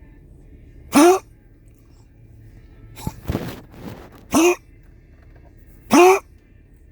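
A pet coughing in short, sharp fits: three brief pitched coughs whose pitch rises at the start, about a second in, about four and a half seconds in and about six seconds in, with a rougher, noisier cough a little after three seconds.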